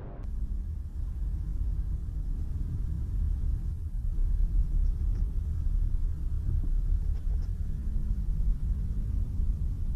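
Steady low vehicle rumble, with almost nothing above a deep drone.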